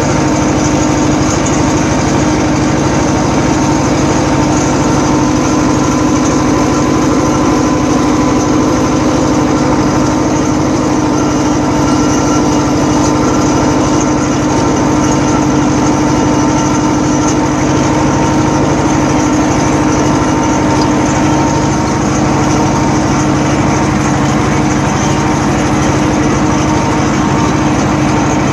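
Vladimirets T-25A2 tractor's two-cylinder air-cooled diesel engine running steadily at a constant speed.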